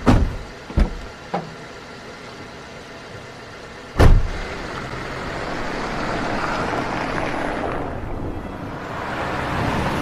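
Car doors shutting: a few thuds in the first second and a half, then a louder door slam about four seconds in. The car then pulls away, its engine and tyre noise swelling steadily.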